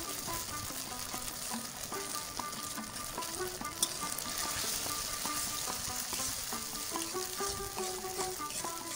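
Chilli fish sauce of onions and capsicum sizzling steadily in a metal kadai. Cornflour slurry is poured in at the start, and a flat spatula stirs the sauce with light scraping. Soft background music runs under it.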